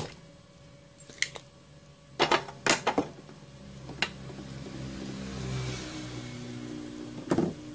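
Sharp clicks and snaps of a spring-loaded desoldering pump (solder sucker) being cocked and fired to pull a resistor off a circuit board, loudest in a cluster about two to three seconds in. A low steady hum runs underneath and swells for a couple of seconds past the middle.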